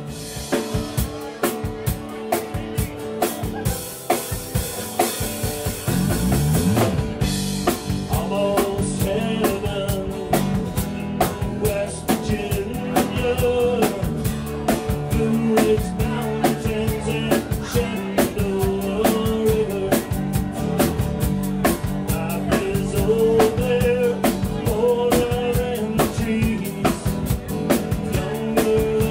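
Live band playing a song on acoustic guitar and drum kit. It opens with a cymbal wash, then settles into a steady snare and bass-drum beat, with a man singing over it from about eight seconds in.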